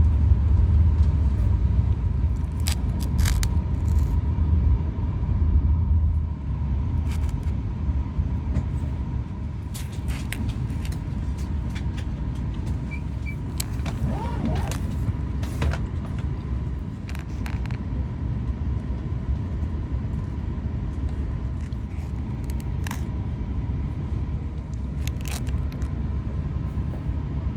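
Steady low rumble of a Shinkansen bullet train heard from inside the passenger cabin while moving, with a faint steady high whine. Scattered light clicks and taps sound over it.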